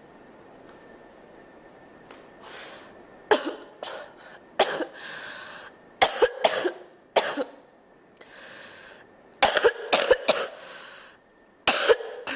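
A girl coughing in repeated bouts of several quick, sharp coughs, with breaths drawn in between the bouts; the first bout starts about three seconds in.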